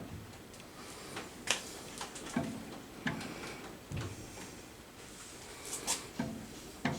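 Scattered light metallic clicks and soft knocks, about ten over the stretch and irregularly spaced. They come from a scope clamp being nudged into line under a gauge pin in a milling machine's chuck; the mill's spindle is not running.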